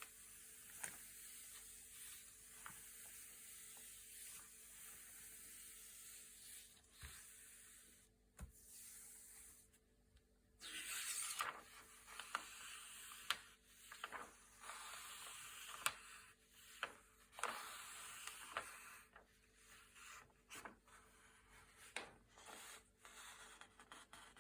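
Thick glossy paper pages being turned and handled: soft sliding rustles with small crisp snaps. A louder rustle comes about eleven seconds in, after a short lull.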